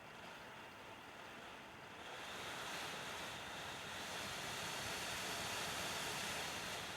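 Dell WD19TB laptop dock's internal fan running as a steady rush that speeds up and grows louder about two seconds in, with a faint high whine on top. The fan is racing toward full speed while the computer is near idle, which the owner takes as a fault in the nearly new dock.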